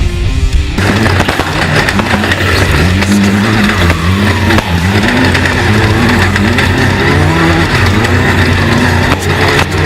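Class 10 off-road race buggy's engine revving up and falling back several times as it drives at speed.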